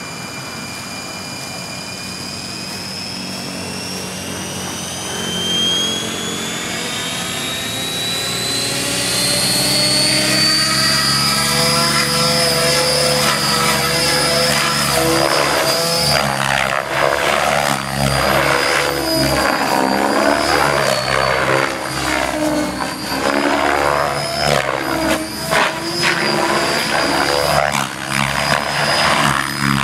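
Compass 7HV electric RC helicopter spooling up on the ground: its motor whine rises steadily in pitch and grows louder for about the first ten seconds. It then holds a steady high whine in flight, with rotor blade noise that swells and fades as it manoeuvres.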